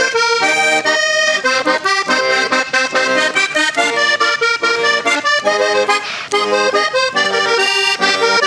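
Hohner Corona III three-row button accordion played solo, a quick melody of fast-changing notes and chords with a brief dip in level about six seconds in.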